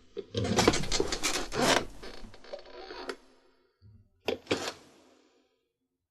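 A chair squeaking and creaking as it is shifted or rocked: a long run of rubbing creaks over the first three seconds, then two short creaks a little past the middle.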